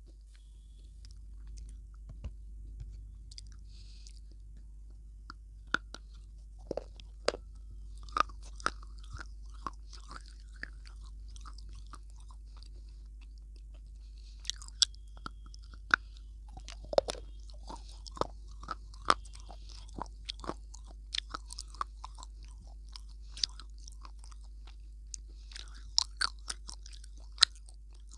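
Close-miked bites and crunchy chewing of a hard, pale bar, heard as clusters of sharp cracks and crunches with quieter stretches between, over a steady low hum.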